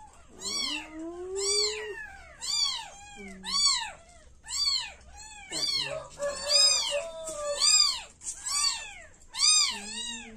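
Week-old kittens mewing: short, high, rising-and-falling cries about twice a second, several voices overlapping at different pitches.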